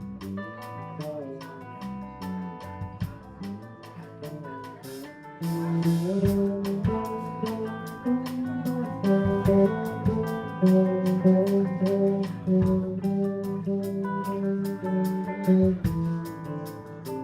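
Instrumental passage of a song led by plucked guitar, which grows louder and fuller about five and a half seconds in.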